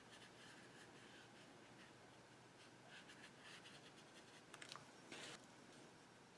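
Near silence: faint scratching of a paintbrush dabbing acrylic paint onto a textured paper page. A few faint clicks and a short scrape come near the end.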